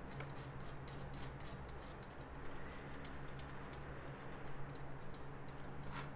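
Irregular light metallic clicks and ticks as nuts are fitted onto bolts and hands knock against the wire mesh of a quail cage during assembly, over a faint steady low hum.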